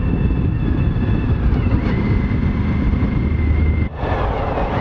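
Suzuki V-Strom 1000's V-twin engine running at road speed, with wind rushing over the microphone. The sound briefly drops out about four seconds in and comes back with a slightly different tone.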